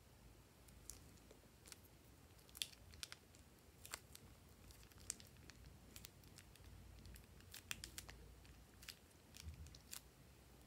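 Faint, scattered clicks and crinkles of a thin plastic piping bag being squeezed and handled.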